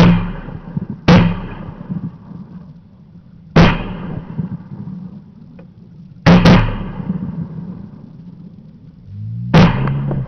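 Shotgun shots fired at waterfowl: six loud reports, single shots at the start, about a second in and about three and a half seconds in, a quick double near the middle, and one more near the end, each trailing off in echo.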